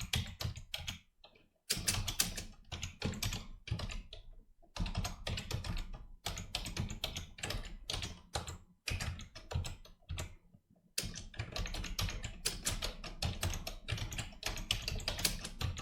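Typing on a computer keyboard: quick runs of key clicks in bursts, with a few short pauses between them.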